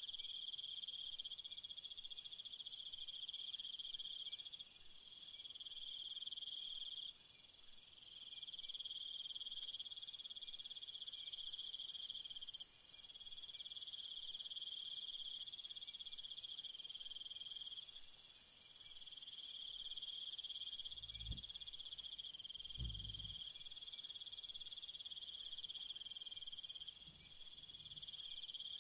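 Night chorus of crickets and other insects: continuous high-pitched trilling in several pitch layers, some stopping and restarting every few seconds. Two dull low thumps about three quarters of the way through.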